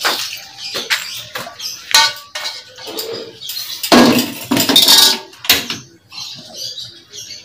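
Metal wok and kitchen utensils clanking as the wok is handled: a string of sharp knocks, some with a short metallic ring, loudest about four to five seconds in and quieter near the end.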